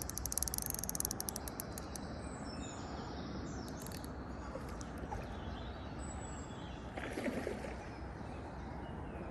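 Steady outdoor background noise with a few faint bird chirps. A rapid, even clicking, like a fishing reel's ratchet, runs through about the first two seconds.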